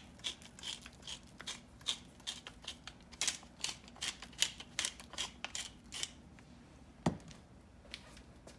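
Hand-turned pepper mill grinding black peppercorns: a run of irregular clicks, several a second, for about six seconds. About seven seconds in comes a single thud as the mill is set down on the countertop.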